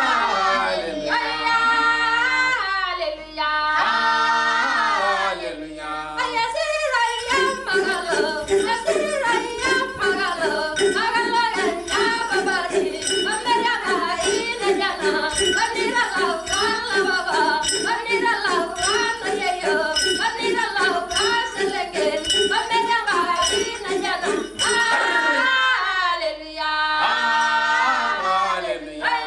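A group of Maasai voices singing a cappella. For most of the middle stretch the melody runs over a held, rapidly pulsing low drone; the opening and closing seconds carry only gliding sung lines.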